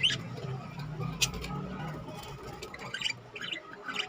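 Pet birds making short high chirps and clicks: a quick rising chirp at the start, a click about a second in, and a cluster of brief chirps near the end, over a low hum.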